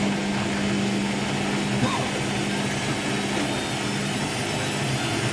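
Hoover WDYNS654D washer dryer spinning, a steady motor hum with a continuous rush from the turning drum.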